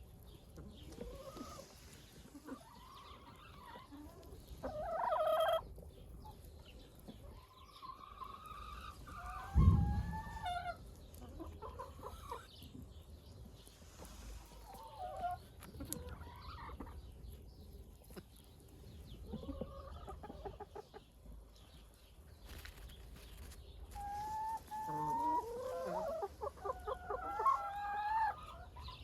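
Chickens clucking and calling, several birds with short scattered calls and a denser run of overlapping calls near the end. A single dull thump about a third of the way through is the loudest sound.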